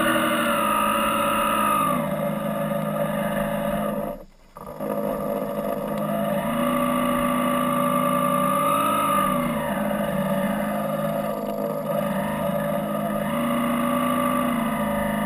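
Drive motor of the RC model trawler that carries the camera, a steady whine that slowly rises and falls in pitch three times. The sound drops out briefly about four seconds in.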